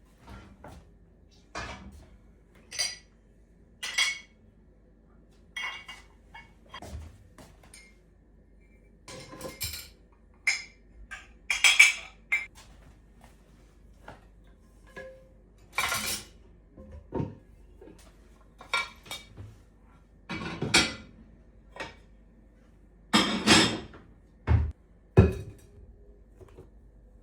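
Kitchen clatter of dishes and utensils: irregular clinks, taps and knocks every second or two, with a few louder clusters.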